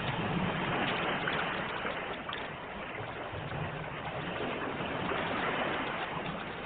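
Ocean waves washing onto a shore, a steady hiss of surf that swells gently and eases back.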